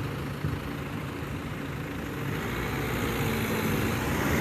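Road traffic on a dual carriageway, with a vehicle coming closer and growing louder through the second half.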